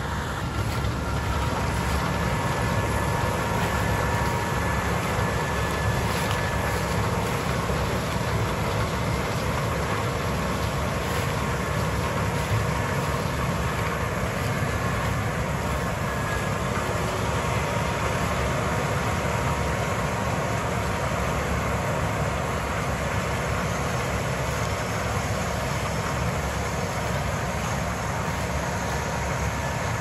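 Combine harvester and a tractor pulling a grain cart running alongside each other: a steady, heavy machinery drone with a faint steady whine in it, growing louder about a second in.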